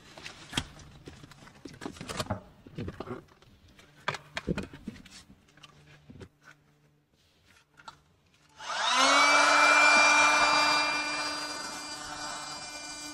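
Rustling and clicking of a cardboard box and packing being handled. About nine seconds in, a small electric air pump for an inflatable car bed, run from the car's cigarette-lighter socket, switches on. It spins up briefly, then runs at a steady hum and whine.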